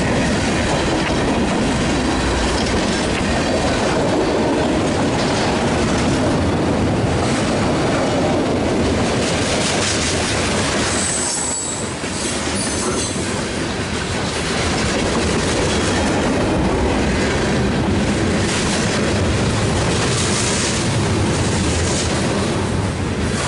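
Freight cars of a long mixed freight train rolling past close by: a loud, steady clatter of steel wheels on the rails. There is a brief high wheel squeal about eight seconds in and a short lull about twelve seconds in.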